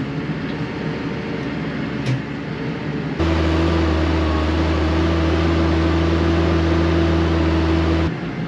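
New Holland T6.180's spark-ignited 6.7-litre methane engine running at a steady speed of around 1500 rpm while working, first heard as a steady drone inside the cab. About three seconds in it turns abruptly louder and deeper, heard from outside the cab, with a strong steady low drone and a humming tone. Near the end it drops back to the quieter cab sound.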